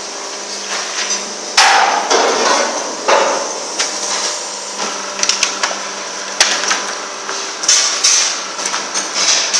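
Vertical hydraulic baler compressing PET bottles: a steady hum from its hydraulic pump motor under a rapid, irregular crackle and snapping of plastic bottles crushed beneath the platen, with a couple of sharper knocks about 1.6 s and 6.4 s in.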